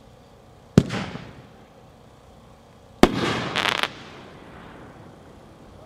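3-inch crackling brocade aerial shell: a sharp launch bang from the mortar about a second in, then about two seconds later the shell breaks with a bang followed by a short burst of dense crackling.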